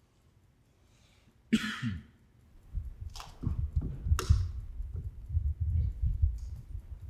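A sudden loud burst about a second and a half in, then handheld microphone handling noise: two sharp knocks and a run of low bumps and rumble as the microphone is lifted and carried.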